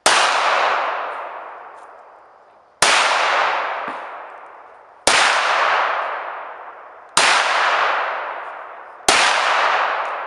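WWII-era Astra 9 mm semi-automatic pistol fired five times at a slow, deliberate pace, about two seconds between shots. Each sharp report rings on as an echo that fades over about two seconds.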